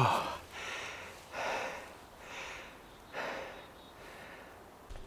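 A man breathing hard: a short falling vocal sound at the start, then four heavy breaths about once a second.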